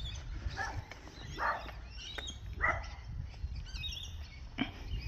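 A dog barking faintly a few times, separate short barks, with birds chirping faintly.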